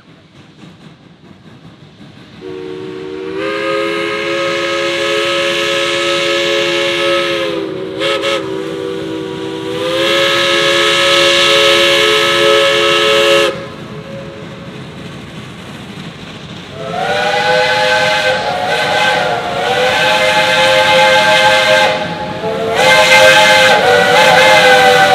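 Steam whistles of geared steam locomotives. A lower-pitched chime whistle sounds two long blasts with a short break between them. After a pause, a higher-pitched chime whistle sounds several blasts, each note a chord of about three tones.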